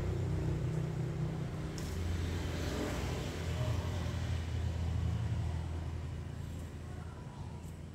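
A low, steady rumble that fades near the end.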